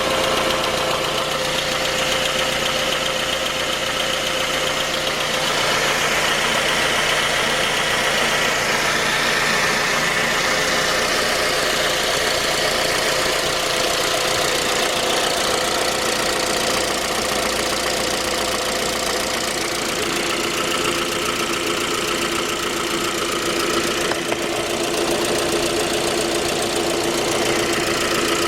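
Suzuki J20A 2.0-litre four-cylinder engine running cold with a knock in it, its tone shifting slightly twice. The knock was traced to a scored crankshaft journal on the third cylinder.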